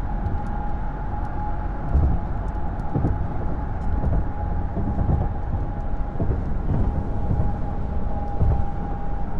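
Cabin noise of a car cruising on a highway: a steady low rumble of tyres on the road and the engine, swelling now and then, with a thin steady whine over it.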